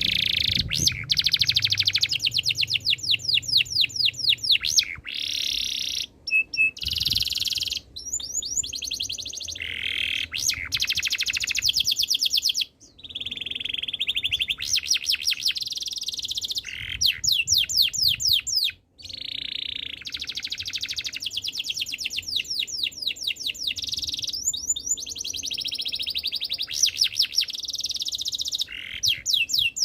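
Domestic canary singing: long, fast trills and rolls of rapidly repeated notes, high-pitched, shifting in speed and pitch from phrase to phrase, with a few brief pauses between phrases.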